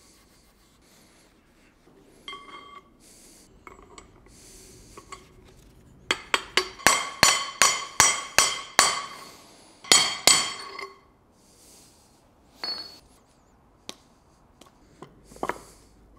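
Hammer blows on a steel tool driving the center shaft bearing onto a BMW E39 prop shaft: lighter clinks and scrapes at first, then from about six seconds in a run of ringing metallic strikes, about three a second. After a short pause comes a second quick run of three strikes.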